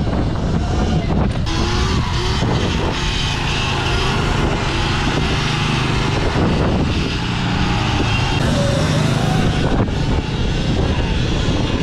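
Motorbikes on the move: steady rushing wind on the microphone, with thin whines gliding up and down as the bikes speed up and slow.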